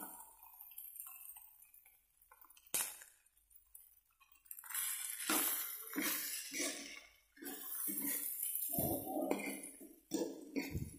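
A metal spatula scraping and clinking against a wok as fried rice is stirred and tossed, in irregular strokes. There is one sharp knock about three seconds in, and the strokes come thick and fast through the second half.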